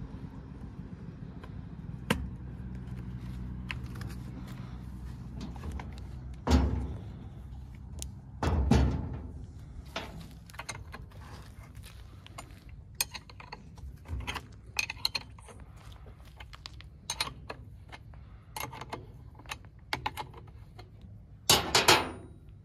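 Clinks, knocks and rattles of a chainsaw and hand tools being handled on a worktable as the saw is taken apart, with its chain off. There are louder thumps about six and nine seconds in and again near the end, and a low steady hum for the first several seconds.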